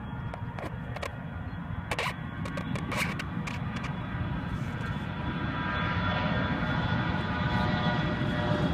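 Bombardier CRJ200 regional jet's two rear-mounted GE CF34 turbofans at takeoff power, a rumbling roar with a high whine that grows steadily louder as the jet speeds down the runway toward the listener. A few sharp clicks sound in the first few seconds.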